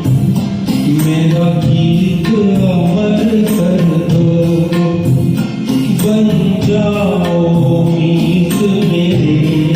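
Ghazal music: a flowing melody line over a steady beat.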